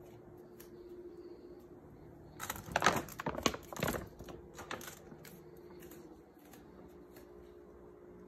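A dog food bag being picked up and handled, a run of sharp crinkles and crackles for about two and a half seconds, with a few lighter rustles and ticks after.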